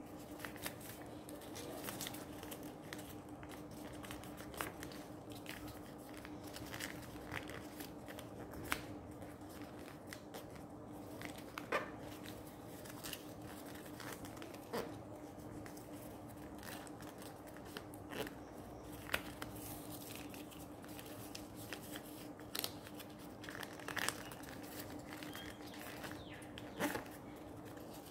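Paper being folded and creased by hand while an origami ninja star is put together: soft crinkling with irregular sharp paper crackles, over a steady low hum.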